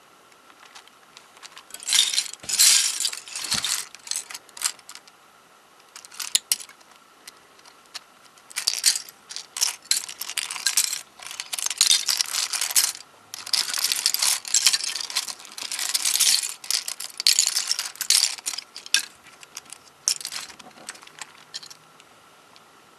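Small plastic pieces of a MoYu 13x13x13 cube clicking and clattering in irregular bursts as the puzzle is taken apart by hand.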